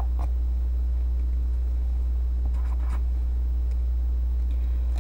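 Steady low hum in the recording, with faint scratches of a felt-tip marker writing on paper about two and a half seconds in.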